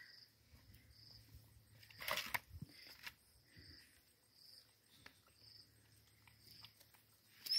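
Faint, high insect chirps repeating about once a second, with a brief rustle about two seconds in.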